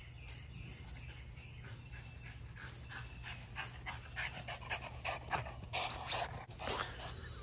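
A dog panting in quick, short breaths, several a second, growing louder about halfway through, over a low steady hum.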